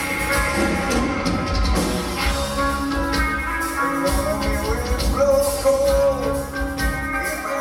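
Heavy metal band playing live: distorted electric guitars, bass and drums, with the lead vocal coming in with a sung, held line about halfway through, heard from the audience.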